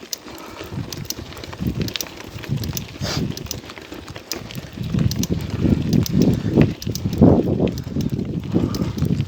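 Bicycle climbing a steep dirt forest trail: knobbly new tyres grip and crunch over the ground, with rattling clicks from the bike and irregular low rumbling that grows louder in the second half.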